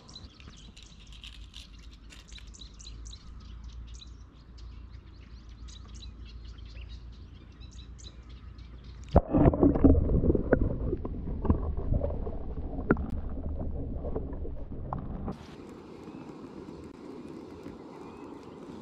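Birds singing over a faint low rumble, then, about nine seconds in, a sudden loud muffled rush of water with gurgles and sharp clicks, heard underwater. About fifteen seconds in this gives way to a quieter steady hiss.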